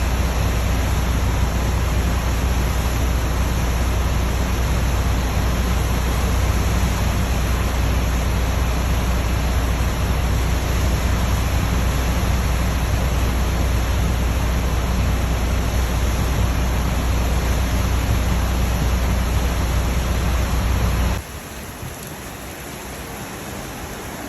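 A steady, loud rush of torrential typhoon rain and storm water, with a deep rumble underneath. Near the end it drops suddenly to a quieter rush.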